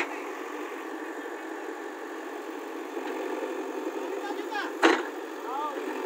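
JCB 3DX backhoe loader's diesel engine running steadily as the backhoe arm works, with a sharp knock right at the start and a louder one about five seconds in.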